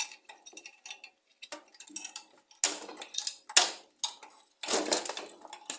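Small metal parts and hand tools clinking and rattling in a series of short, irregular clatters as the governor and throttle linkage is worked off a lawn mower engine.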